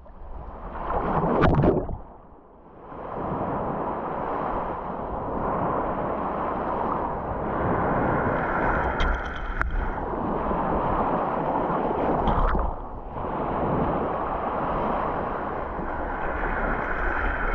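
Small sea waves breaking and washing over a sandy shoreline, heard close to the water, with a steady low rumble of wind on the microphone. The surf noise dips briefly twice.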